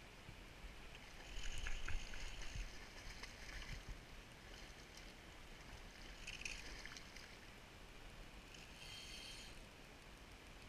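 Okuma SLV fly reel's drag buzzing in four short runs as a hooked steelhead pulls line off against it, faint and high-pitched.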